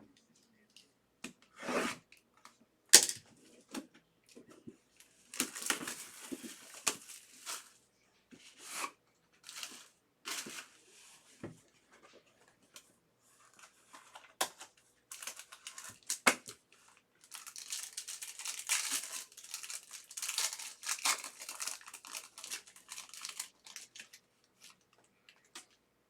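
Packaging of a sealed trading-card box being torn open and crinkled, in irregular rustling bursts. A sharp snap comes about three seconds in, and a long run of crinkling follows in the second half.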